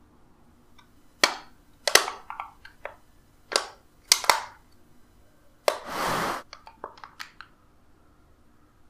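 Aluminium foil food tray crackling as it is handled, in a string of sharp crinkles spread over a few seconds, then a longer crumpling rustle about six seconds in and a few light clicks.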